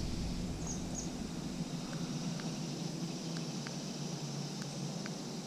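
Quiet river-bank ambience from a boat: a steady low hum under a steady high hiss, with two short high chirps about a second in and faint scattered ticks.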